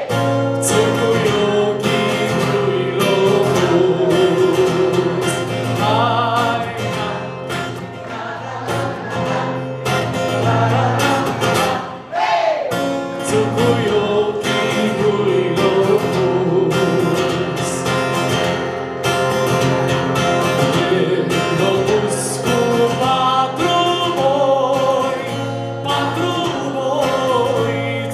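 A male voice singing a Romanian folk song to his own acoustic guitar accompaniment.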